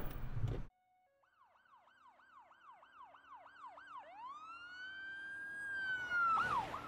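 Electronic emergency-vehicle siren: a fast yelp, about three sweeps a second, switches to a long rising and falling wail and then back to the yelp, growing steadily louder. Music cuts off abruptly under a second in, just before the siren starts.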